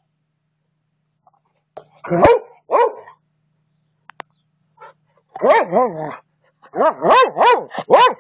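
Dog barking in play: two single barks, then after a short pause a quicker run of barks, each rising and falling in pitch.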